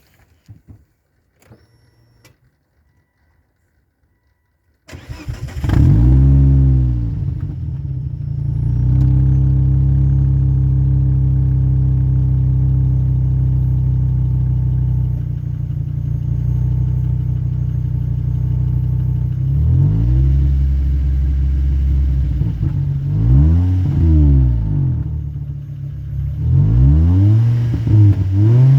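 A 2004 Volvo S60's 2.4-litre five-cylinder engine starts about five seconds in, flares up and settles to a steady idle, then is blipped several times in the last ten seconds. Its exhaust leaks through a broken rear silencer (backbox), which gives a horrible sound at low revs.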